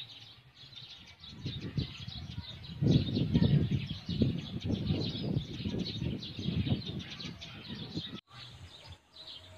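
Small birds chirping in the background, with a low, uneven rumbling noise that swells about three seconds in and cuts off abruptly near the end.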